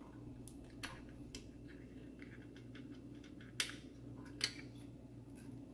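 Scattered light clicks and taps of hand tools and parts being handled under the hood, two sharper clicks a little past halfway, over a steady low hum.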